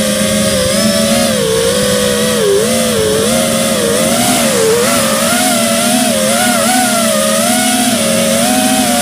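Multirotor drone's electric motors and propellers whining steadily, heard on board the drone, the pitch wavering up and down as it flies.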